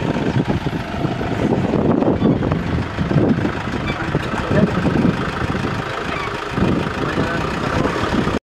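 A vehicle's engine running at idle.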